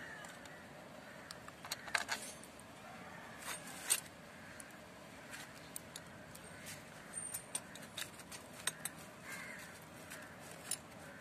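Scattered light metallic clicks and clinks of small bolts being handled, set into their holes and started by hand in the TVS Wego scooter's final-drive gear case cover.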